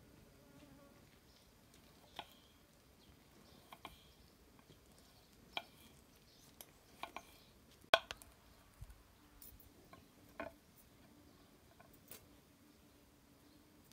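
Knife cutting carrots on a wooden cutting board: sharp, irregular taps of the blade on the board a second or two apart, the loudest about eight seconds in.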